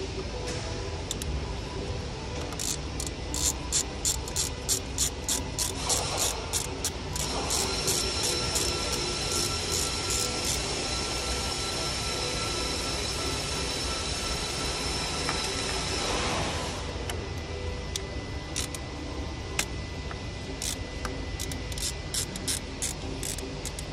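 Hand ratchet turning a socket on the coolant temperature sensor housing bolts, the pawl clicking in quick runs through the first half and again near the end. A steady high whine runs through the middle stretch.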